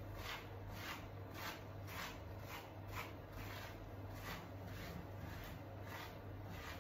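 Hands rubbing and working a wet, lathered puppy coat, a repeated scrubbing rub about twice a second over a steady low hum. The product is being worked into tight knots to loosen the dead coat.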